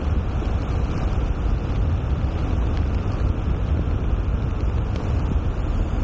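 Wind buffeting the microphone of an action camera on a bicycle descending at speed: a loud, steady low rumble.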